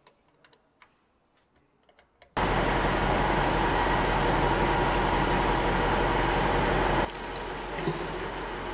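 A few faint metallic clicks, then a loud, steady machine noise with a low hum that starts abruptly about two and a half seconds in. About seven seconds in it drops to a quieter steady hum with an odd click.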